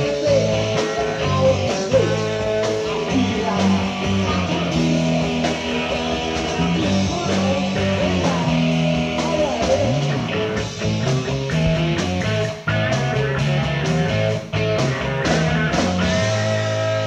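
Live rock band playing an instrumental passage: electric guitar lines over a Gibson Grabber electric bass and drums, with the drum hits more frequent in the second half.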